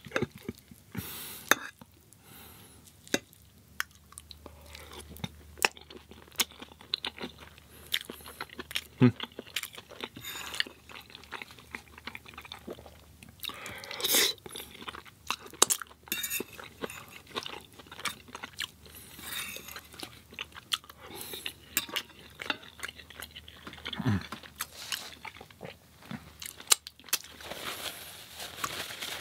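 A person chewing crunchy food, with many irregular crisp crunches and bites.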